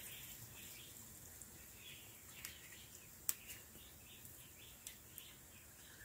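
Quiet background of faint birds chirping, with a few sharp clicks, the loudest about three seconds in.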